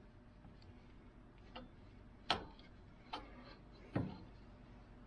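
A few short, sharp clicks and knocks, four in all at uneven spacing: vice grips being worked against the heated pivot fastener of old pliers to break it loose.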